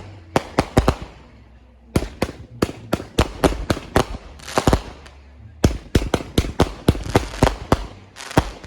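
Consumer fireworks going off in rapid sharp bangs, several a second, in three runs with short lulls after about a second and again about five seconds in.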